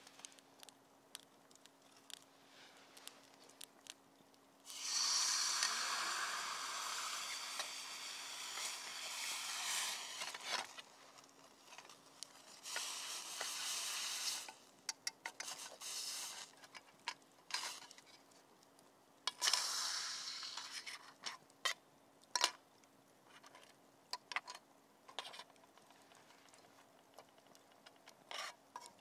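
Hand-tool work: three bouts of scraping, the first about six seconds long and the loudest, with scattered light clicks and taps between them.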